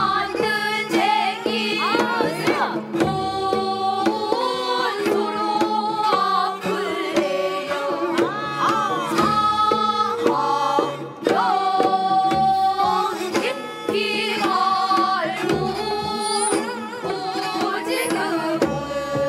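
Korean traditional gugak music: a held, wavering melody with rich overtones over a low drum stroke every few seconds.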